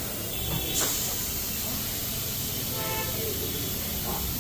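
Steady tyre-shop background noise with a low hum, and a short sharp hiss about a second in.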